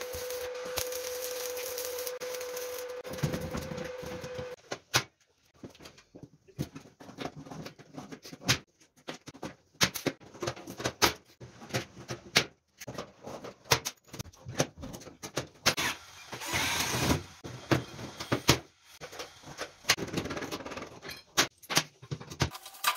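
Electric arc welding on a steel frame: a steady crackling hiss that stops about four and a half seconds in. After that come irregular metallic clicks and knocks as steel parts and tools are handled and fitted to the floor frame.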